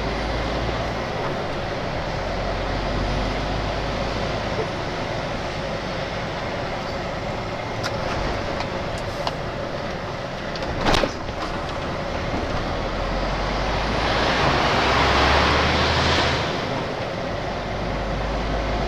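Steady engine hum and road noise inside a lorry's cab on the move, with a single sharp knock about eleven seconds in and a louder rush of noise lasting about two seconds near the end.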